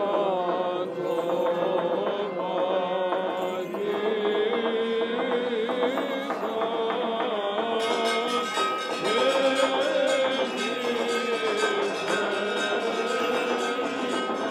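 Male voices chanting a Byzantine-style hymn in slow, ornamented melody over a steady low held drone note.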